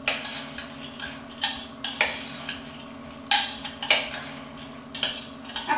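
Metal spoon stirring sprout salad in a stainless-steel bowl, scraping and knocking against the bowl's sides in irregular sharp clinks about once a second.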